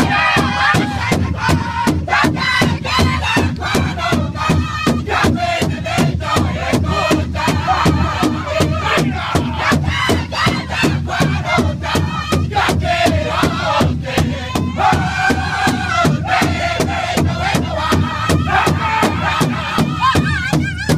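Powwow drum group singing in high voices over a large shared hand drum struck in unison with sticks, a steady beat of about two and a half strokes a second.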